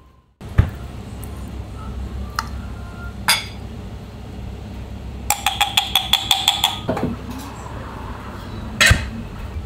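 Kitchen prep sounds: a spoon clinking against a glass pesto jar and a ceramic bowl as Genovese pesto is spooned in, with a quick run of ringing taps about halfway through and a sharper click near the end, over a steady low kitchen hum.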